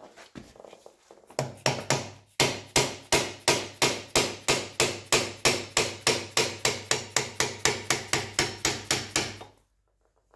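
Mallet hammering on a SAJO milling machine's cast handwheel to drive it off its leadscrew shaft: a fast, even run of sharp blows, about four a second, for some eight seconds. The blows stop abruptly shortly before the end as the wheel comes off.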